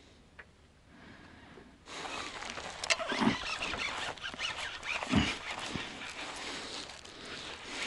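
Rustling and clicking handling noise that starts suddenly about two seconds in, with a couple of dull thumps, as a fishing rod bent by a hooked fish is worked and its reel cranked.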